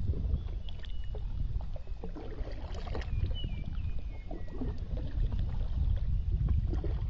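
Kayak paddle dipping and splashing in the water, with water lapping and gurgling against the hull over a steady low rumble.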